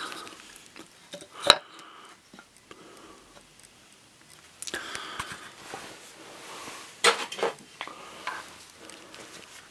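Clicks and clattering knocks of hard objects being handled, with the sharpest knock about one and a half seconds in and two more close together near seven seconds, and light rustling between.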